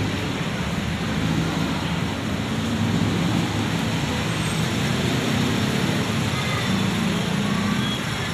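Busy city street ambience: a steady rumble of road traffic with faint voices of passers-by.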